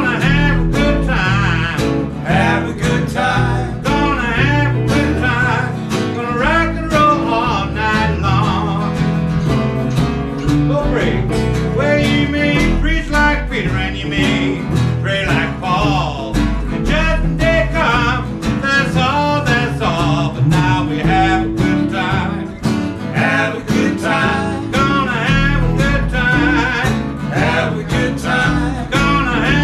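A small blues band playing live: a hollow-body electric guitar and an acoustic guitar over a plucked upright double bass.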